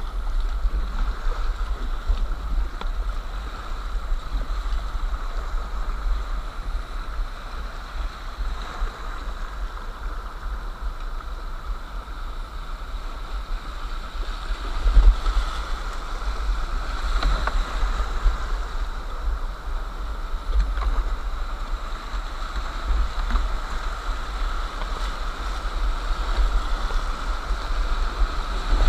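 Rushing whitewater of a boulder-strewn mountain river, a steady noise with a strong low rumble underneath and a brief louder surge about halfway through.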